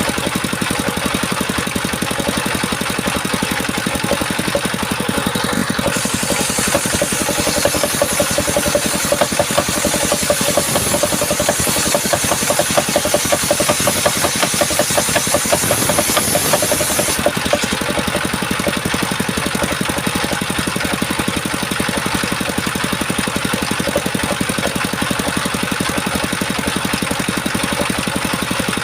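Engine-driven circular sawmill running steadily with a fast, even pulsing. From about six seconds in until about seventeen seconds in, a high hiss joins it as the blade cuts through coconut wood, then it drops back to running free.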